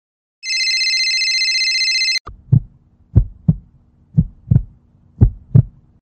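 A telephone rings once, a steady trilling ring lasting nearly two seconds. Then a heartbeat sound effect begins: low double thumps, about one pair a second, over a faint hum.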